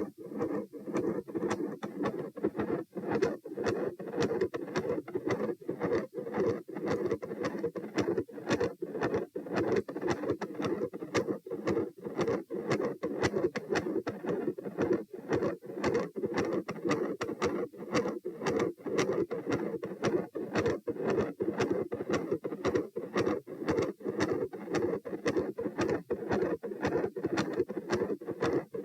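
Heart sounds heard at the chest, beating quickly and regularly, with a continuous 'machinery' murmur running through the beats. This kind of murmur is typical of a patent ductus arteriosus.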